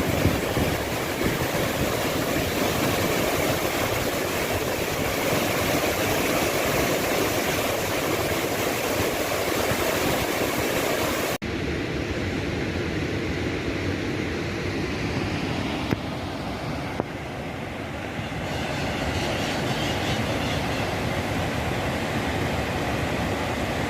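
Waterfall rushing with a steady noise; about halfway through the sound cuts abruptly and continues duller, with less hiss.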